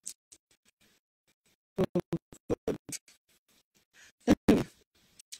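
A person's voice in short, choppy fragments that cut in and out, with a louder pair of bursts about four seconds in.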